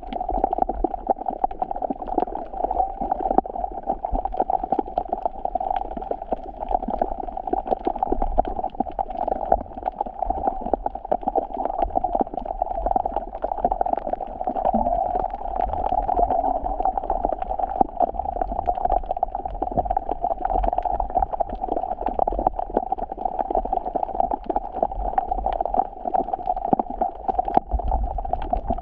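Black Sea waves washing onto the beach: a steady fizzing wash of surf, full of small crackles, that runs on without a break.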